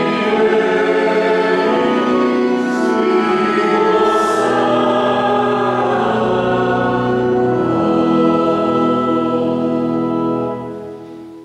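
Church choir singing a sacred piece with instrumental accompaniment, the final held chord fading out near the end. The recording carries an echo from a technical fault.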